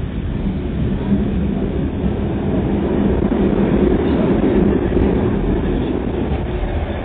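Passenger train running along the line, heard from inside a second-class compartment: a steady low rumble of wheels on rails and running gear, swelling slightly past the middle.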